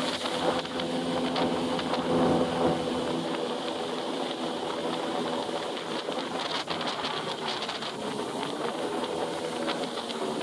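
Yamaha jet ski engine running steadily at cruising speed, about 35 mph, with wind rushing over the microphone and water hissing past the hull. The engine's note grows fainter about three seconds in as the craft eases off slightly.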